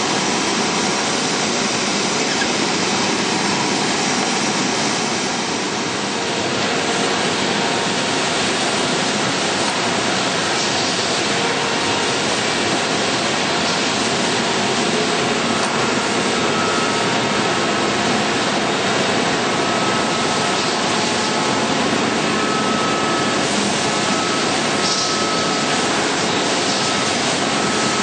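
An industrial edge sanding line of single-sided sanding machines running: a loud, steady, even machine noise of motors and dust extraction. A faint high whine comes in about halfway through.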